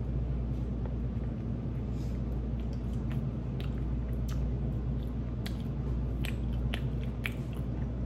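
A man biting into and chewing a slice of microwaved cheese pizza: irregular wet mouth clicks and smacks over a steady low hum.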